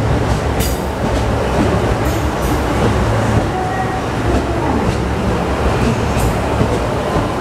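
JR Central KiHa 75 diesel railcar train at the platform, giving a steady low rumble from its diesel engines and running gear, with a few light clicks.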